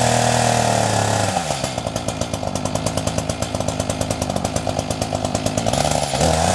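Echo CS-590 Timberwolf two-stroke chainsaw at full throttle. About a second and a half in, its pitch drops as the chain bites into the dense eucalyptus stump and the engine labours through the cut. Near the end it revs up again as it frees up.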